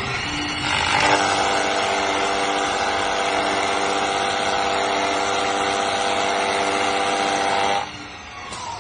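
CNC wood lathe running: a steady motor whine with several held tones over cutting noise, which cuts off sharply near the end and winds down in a falling whine.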